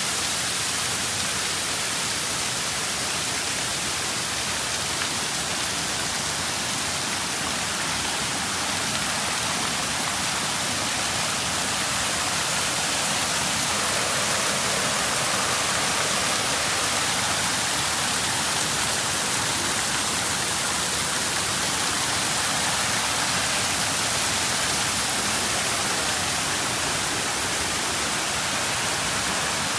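Wide curtain waterfall of many thin streams pouring over a mossy rock face into a shallow pool: a steady hiss of falling and splashing water.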